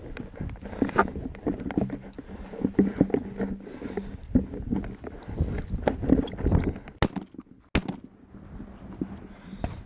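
Handling noise on a gun-mounted camera as a hunter walks over rocky ground: irregular knocks, scrapes and rustles from the shotgun and the footsteps. There are two sharp clicks about a second apart near the end.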